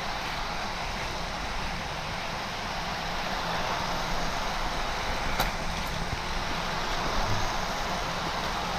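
Steady whirring rattle of Hot Wheels die-cast cars racing down orange plastic track, with the battery-powered track boosters spinning. There is a single sharp click about five seconds in.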